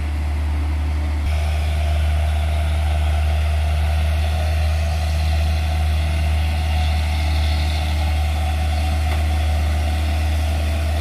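Hino truck's diesel engine running steadily under load as the truck climbs a steep hairpin, a deep drone. The sound shifts abruptly about a second in.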